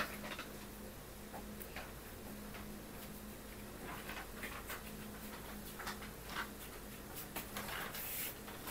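Gel pen writing on a book page: short, irregular scratches and ticks of the nib on paper, with a sharp tick at the start and a longer scratchy stroke near the end.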